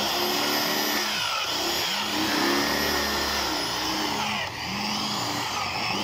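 Electric hand drill running steadily as its bit grinds into the metal lock of a motorcycle fuel-tank cap, drilling it out because the key is lost. Its pitch rises and falls again and again as the bit bites.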